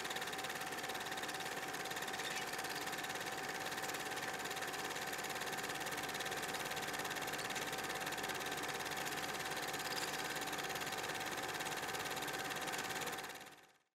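Film projector running: a steady, fast mechanical clatter over a constant hum, fading out near the end.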